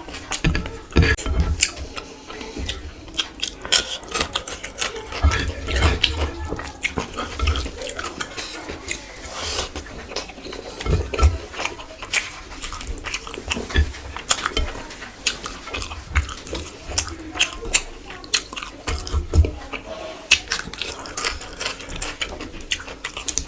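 Close-up eating sounds: wet chewing and mouth smacks, with many small irregular clicks and soft thumps as rice and curry are eaten.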